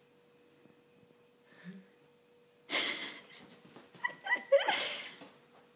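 A sudden rustle about three seconds in, then a puppy's short, high, rising whimpers.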